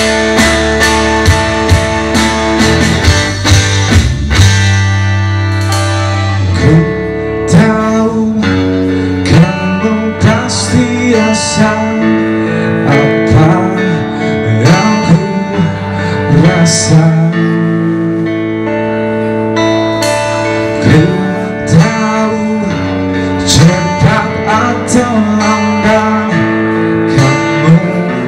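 A live band playing a pop-rock song: electric guitar and drum kit with a steady beat, with a man singing into a microphone.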